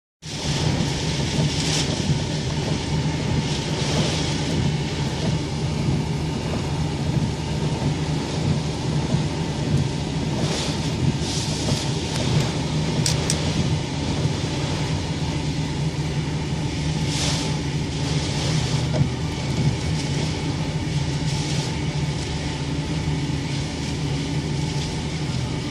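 Heavy rain and high wind in a thunderstorm: a steady rushing over a constant low rumble, with gusts swelling every few seconds.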